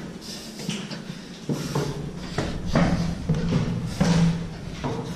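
Footsteps climbing a wooden stair: about eight uneven thuds on the treads, several followed by a short low ringing in an echoing concrete room.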